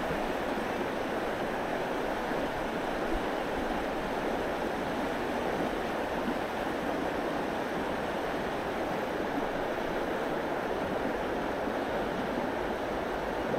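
Steady rush of a flowing stream's current, an even hiss with no breaks.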